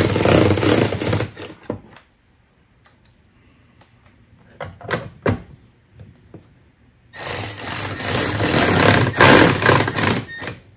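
Milwaukee M12 cordless ratchet running in two bursts as it tightens the taillight's two 10 mm bolts into plastic mounts. The first run stops about a second in and the second runs for about three seconds near the end, with a few light clicks between.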